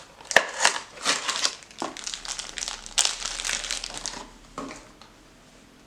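Crinkling and rustling handling noise with several sharp clicks for about four seconds, then it stops.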